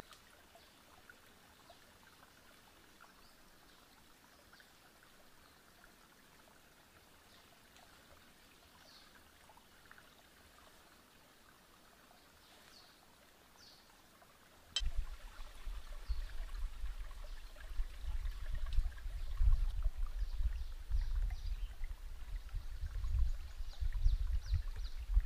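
Near silence with a few faint high chirps. About halfway through, a click is followed by an uneven, gusting low rumble of wind buffeting the microphone.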